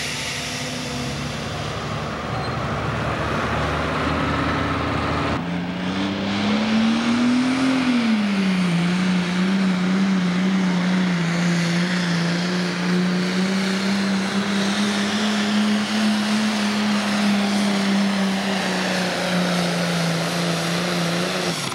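Pro stock pulling tractor's turbocharged diesel engine running at full throttle under load while pulling the weight sled. About five seconds in the sound changes abruptly; the engine note then climbs, drops back and holds a steady, high-revving drone.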